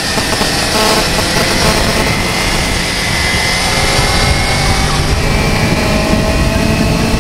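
Motorcycle under way: the engine runs under a steady rush of wind and road noise, its pitch climbing slowly in the second half.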